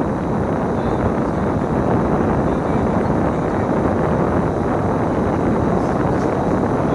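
Steady engine and road noise of a bus in motion, heard from on board.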